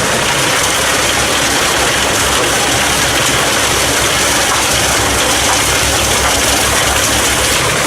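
Pezzolato PTH 700 G drum wood chipper running off the PTO of a 220 hp Fendt tractor, the drum and the tractor engine making a loud, steady mechanical din with a fine low pulsing.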